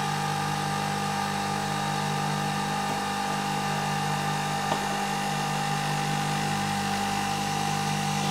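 Krups-built Nespresso Vertuo machine brewing an espresso: a steady, even whirring hum as it spins the capsule and pumps the coffee into the cup, with one faint click a little past halfway.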